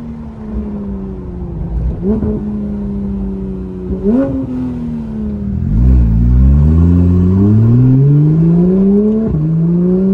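Porsche 911 GT3's naturally aspirated flat-six through a Soul Performance competition exhaust, heard from inside the cabin. The revs sag with two short throttle blips, then about six seconds in the engine pulls hard under acceleration, the pitch climbing steadily and at its loudest. Near the end there is a quick drop at a gearshift before it climbs again.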